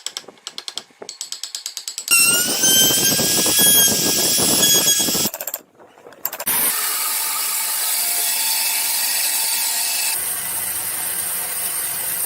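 Woodworking tools in a string of short clips: first a rapid, regular clicking; then a power tool starting up with a whine that rises and levels off; then, after a brief gap, a power tool running steadily on wood.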